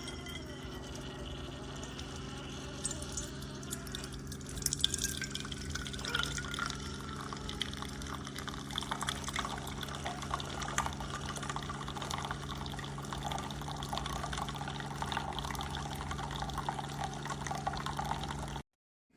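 Keurig K-Iced single-serve coffee maker brewing: a steady pump hum with liquid streaming and dripping into the cup. It cuts off suddenly near the end.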